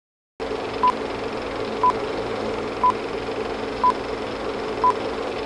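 Film-leader countdown: a short, high, even-pitched beep once a second, five times, over a steady hiss and hum. The sound starts about half a second in.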